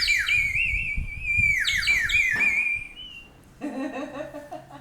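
A toy bird whistle blown: a warbling trill that wobbles quickly around one high pitch, broken by several swoops that slide downward, for about three seconds.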